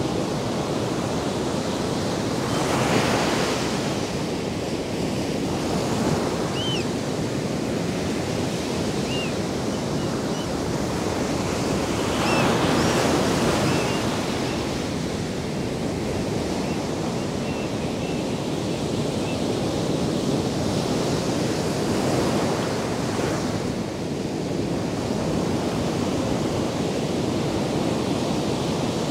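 Ocean surf breaking and washing up a sandy beach in a continuous rush that swells several times as waves crash.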